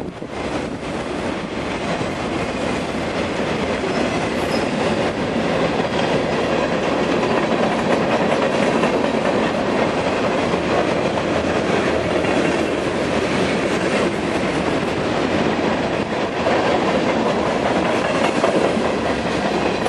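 Freight train cars (autoracks, boxcars and covered hoppers) rolling past at speed: steady wheel-on-rail noise from the passing cars.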